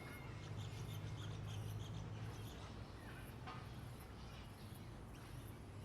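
Small songbirds chirping faintly in short, scattered calls, over a low hum that is louder for the first couple of seconds, with a steady high-pitched pulsing about twice a second.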